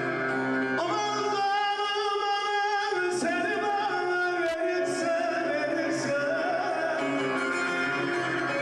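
Turkish folk music: a man singing a bozlak in long, wavering held notes, with bağlama (long-necked saz) accompaniment.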